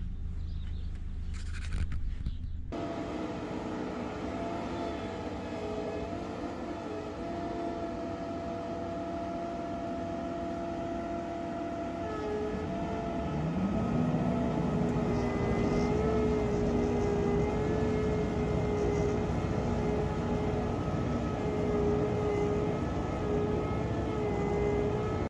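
JCB wheel loader's diesel engine running steadily with a held whine. A little before halfway it revs up, one tone sweeping upward and levelling off, and it stays louder from then on.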